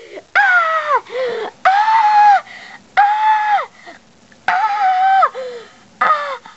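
A girl's high-pitched squeals without words: about five long held notes, each ending in a drop in pitch, with a few short ones between and brief gaps.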